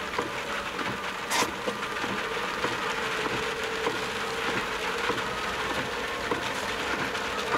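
Tyre and rain noise heard inside a moving car's cabin on a wet road, with the windscreen wipers running. A single sharp click about a second and a half in.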